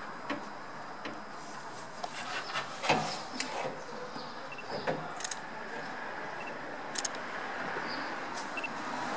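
Scattered light knocks and clicks as a car radiator with plastic tanks is gripped and shifted in the engine bay, the sharpest knock about three seconds in, over a steady background hiss.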